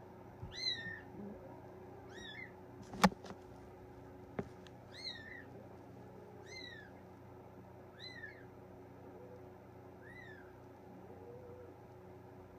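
Three-week-old Bengal kitten mewing repeatedly: six short, high-pitched mews about every one and a half seconds. A single sharp click about three seconds in is the loudest sound.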